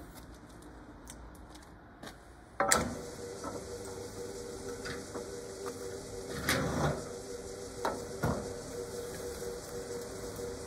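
Pillar drill switched on about two and a half seconds in, its motor then running with a steady hum while a countersink bit chamfers a drilled hole in a steel part. A few sharp metallic knocks come as the part is set against the bit, with a louder cutting stretch a little past the middle.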